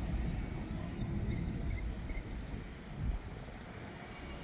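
Outdoor ambience: a steady low rumble with rows of rapid, high insect chirping and a few short chirps.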